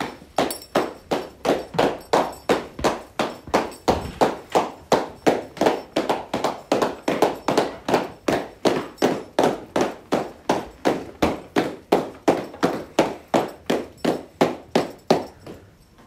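A steady beat of sharp strikes in a reverberant hall, about two and a half a second and evenly kept, beginning abruptly and ending abruptly.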